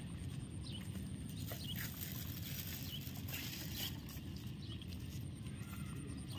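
A stray dog eating rice from a foam food tray: small chewing and mouthing clicks in the first few seconds, stopping as it lifts its head. A steady low rumble sits under it.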